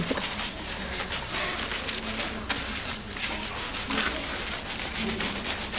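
Water running and splashing in a tiled washroom, a steady hiss with many small irregular drips and splashes, with faint voices underneath.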